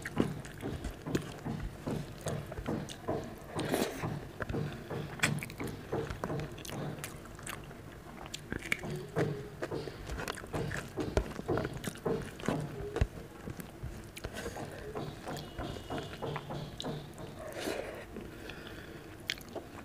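Close-up eating sounds: chewing mouthfuls of moong dal and rice by hand, with many small wet mouth clicks and fingers squishing the rice and dal together on the plate.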